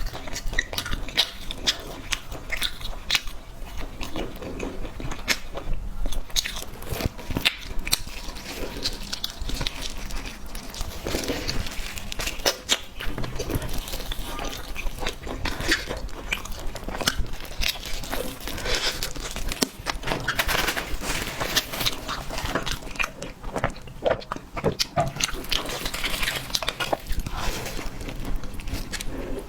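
Close-miked biting and chewing of cake: a continuous run of small crunchy clicks and wet mouth sounds.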